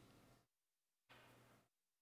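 Near silence: faint room tone that cuts out to dead silence about half a second in and again near the end.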